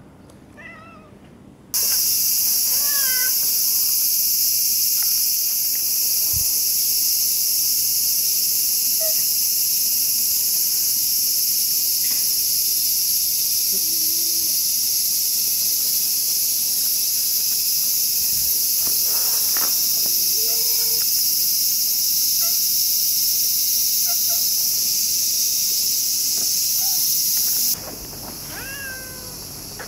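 Dense chorus of insects shrilling, a loud steady high-pitched drone that comes in abruptly about two seconds in and cuts off near the end. Cats meow briefly at the start and again near the end, with a few faint cries from the cats in between.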